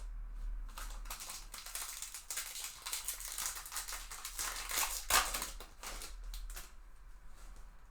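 Topps Chrome baseball cards being handled and flipped through: dense rustling, sliding and clicking of card stock, with a louder snap about five seconds in.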